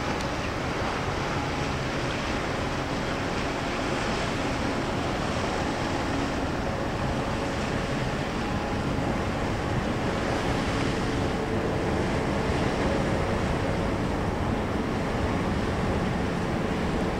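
Steady rushing of wind on the microphone and canal water, with a faint low engine hum from a passing container ship that comes in partway through.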